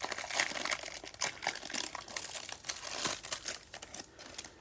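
Cellophane wrapper around a stack of trading cards being torn open and crinkled, a steady run of irregular crackles.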